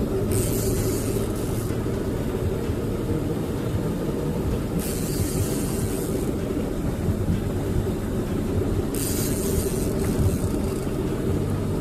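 Boat motor running steadily with a low, even drone. A hiss swells over it three times, about four seconds apart.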